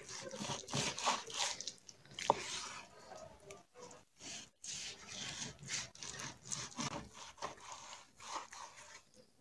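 A long straight knife sawing back and forth through a raw beef rib fillet, the blade rubbing and scraping against a wooden cutting board in irregular strokes, with one sharp click a little over two seconds in.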